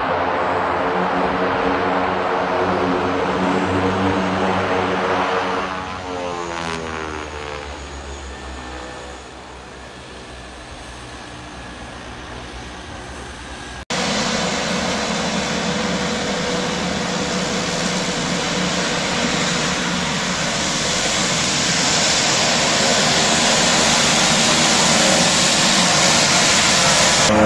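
Twin-engine turboprop plane's engine drone on the runway, falling in pitch and fading from about six seconds in. About halfway through, the sound jumps to a turboprop running close by, with loud propeller hiss that grows slowly louder toward the end.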